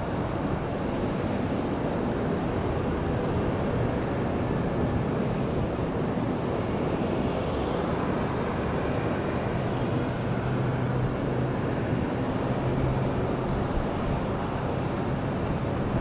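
Distant twin-engine propeller airplane landing: a steady engine drone over a haze of noise, with a low hum growing stronger in the second half.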